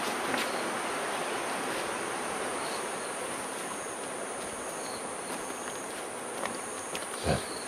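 A steady, high-pitched chorus of insects droning without a break outdoors, with a short dull thump near the end.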